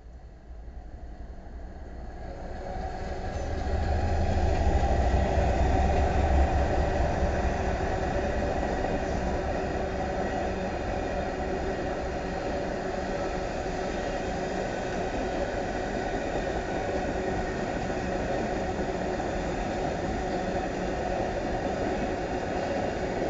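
A string of BNSF diesel locomotives, 28 units running light with no cars, rolls past. Engine drone and wheel-on-rail noise build over the first few seconds, peak with a deep rumble around four to seven seconds in, then hold steady as unit after unit goes by.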